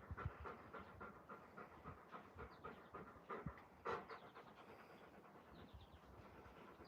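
Alaskan Malamute panting faintly and rapidly after rough play, with one louder short sound about four seconds in.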